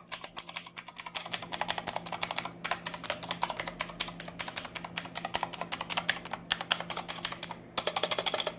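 Mechanical keyboard with Outemu Blue clicky switches being typed on rapidly, each keystroke a sharp click, with a brief pause near the end.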